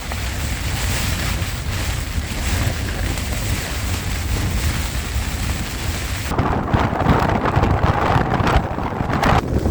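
Storm noise of heavy rain and gale-force wind, the wind buffeting the microphone with a low rumble. About six seconds in, the sound changes abruptly: the high rain hiss drops away and a rougher, gusting rush of wind takes over.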